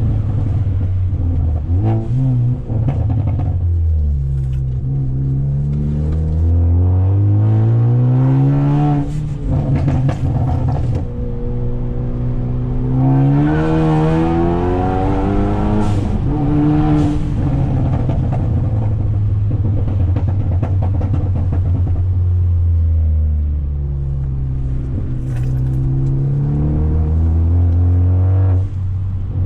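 Straight-piped Ford Focus ST's turbocharged engine, running through a catless downpipe and Flowmaster exhaust, accelerating through the gears. The engine note climbs in pitch and drops back at each shift, holds steady for a stretch, falls as the car slows, then climbs again near the end. A few short sharp cracks come from the tuned exhaust, typical of its pops and crackles.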